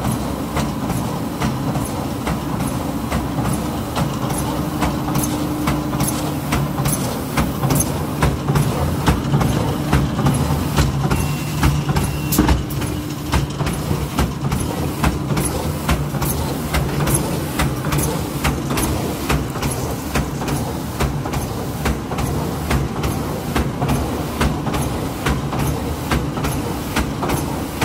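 Arvor GGL 128 automatic plastic-film welding machine running, a steady mechanical hum under a regular clacking, roughly two clacks a second.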